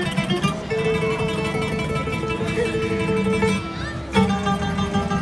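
Guitar-led instrumental music with plucked acoustic-guitar notes over held tones. A strong new chord is struck about four seconds in.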